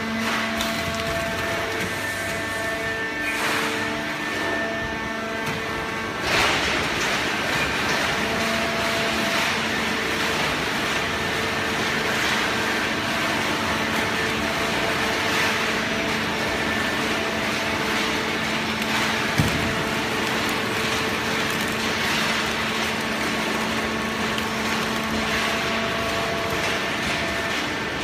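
Fully automatic horizontal hydraulic baler running: a steady machine hum with a whine of several steady tones from its hydraulic power unit, joined about six seconds in by a louder rush of machine noise that carries on.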